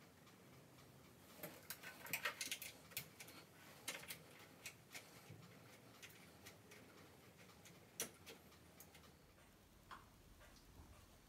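Quiet metal clicking and ticking from a flexible water supply tube's nut being handled and screwed onto a chrome angle stop valve under a basin. The clicks come quickly about two to three seconds in, then thin out, with a single louder click near eight seconds.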